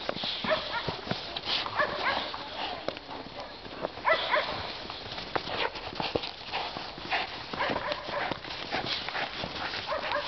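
Several Boxer dogs play-fighting and tugging at a toy together: scuffling and pawing in snow, with short dog vocal noises every second or so.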